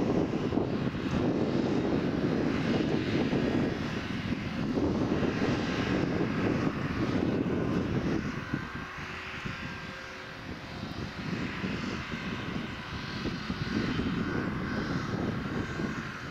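New Holland tractor fitted with a flail hedge cutter, its engine running steadily as it drives across the field. The drone drops in level about eight seconds in and builds back up a couple of seconds later.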